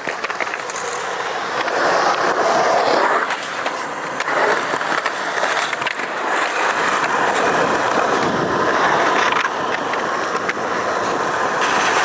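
Skateboard wheels rolling and carving across concrete in a skatepark, a continuous rolling rumble that swells and eases as the board moves through the park.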